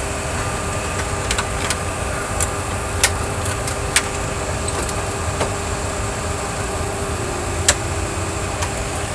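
Steady engine-like hum and rumble in a Boeing 737 simulator cockpit, with a few sharp clicks of cockpit controls as the captain works the engine fire memory items at the pedestal.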